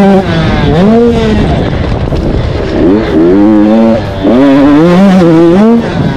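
KTM 85 two-stroke motocross bike engine revving hard under acceleration, its pitch climbing and then dropping sharply several times as the rider shifts up and backs off the throttle.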